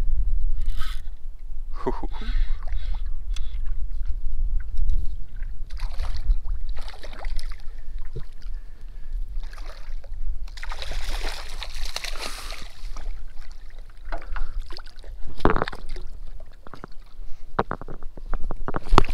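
Water splashing and sloshing beside a paddleboard as a hooked barracuda is brought alongside and lifted aboard, loudest about ten to twelve seconds in. A few sharp knocks follow near the end.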